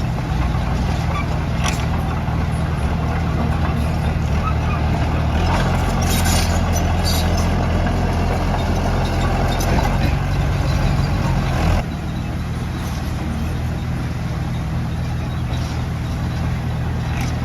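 Bulldozer's diesel engine running under load. The engine note shifts about five seconds in and drops suddenly in level near twelve seconds, with a few short metallic clanks.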